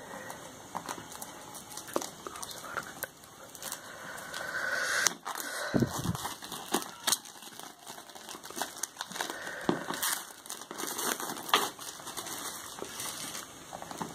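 Clear plastic shrink-wrap being torn and peeled off a cardboard smartphone box, crinkling and crackling, with many small irregular clicks as the film is pulled and the box is handled.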